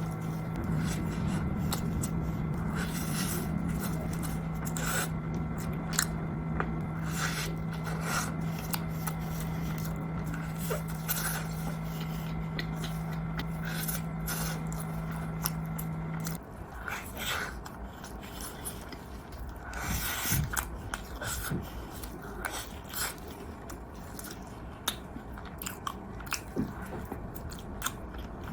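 A person biting and chewing crunchy food close to the microphone: a run of crisp crunches and mouth sounds. A steady low hum runs under it and cuts off suddenly about two-thirds of the way through.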